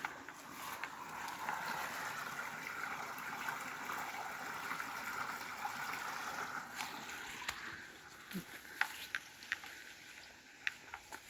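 A small creek trickling and babbling, fading out after about seven seconds. Footsteps on the trail follow as scattered crunches.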